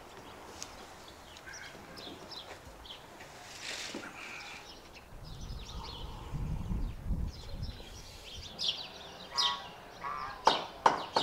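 Outdoor ambience with small birds chirping and tweeting intermittently. A few sharp, louder clicks and short calls come near the end.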